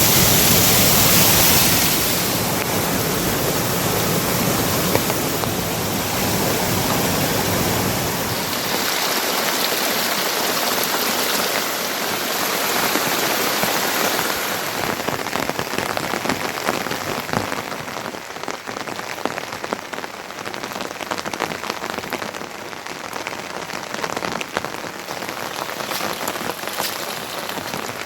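Heavy rain falling steadily. In the second half the individual drops hitting a surface stand out more sharply.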